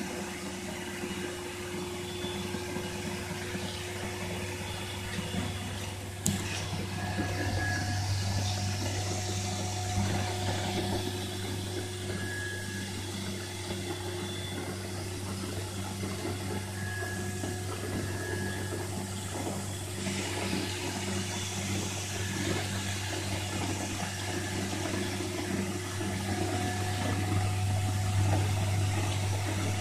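Wet-spray cellulose insulation being blown from a hose nozzle into a wall cavity: a continuous rushing hiss of fibre and water mist over a steady low hum, with a sharp click about six seconds in.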